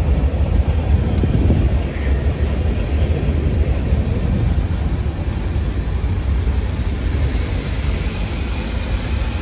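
Chevrolet 454 big-block V8 in a motorhome idling with a steady low rumble through its newly fitted exhaust, sounding pretty quiet.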